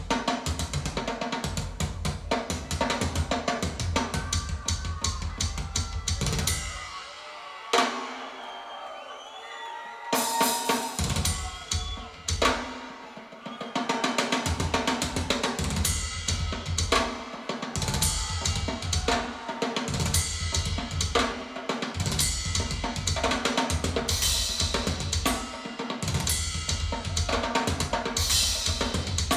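Instrumental band music with a full drum kit and bass, played back through Piega Premium 501 Wireless Gen 2 loudspeakers and picked up in the room. Around a quarter of the way in, the drums and bass drop out for about three seconds, leaving sliding high notes, and then the full band comes back in.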